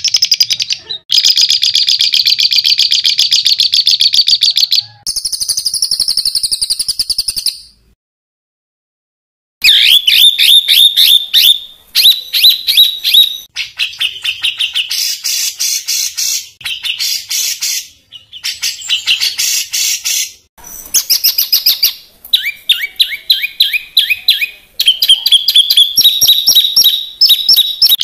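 Recorded songbird singing harsh rapid-fire 'tembakan' phrases: very fast strings of repeated high notes, some falling in pitch, in bursts a few seconds long with short pauses between them. There is about a second and a half of silence a third of the way through.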